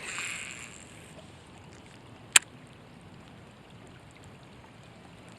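A fishing cast: line hissing out for about a second, fading as it goes. About two seconds later there is a single sharp click, over a faint steady patter of light rain.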